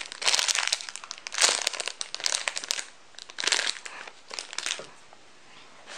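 Thin clear plastic squishy bag crinkling as it is handled, in a string of short rustles that die down about five seconds in.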